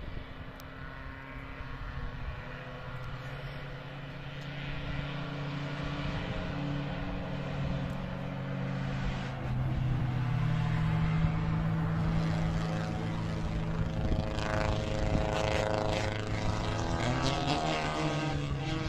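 Race car engines running along a mountain road, a steady engine note that grows louder as the cars come nearer, the pitch rising and falling with revving near the end.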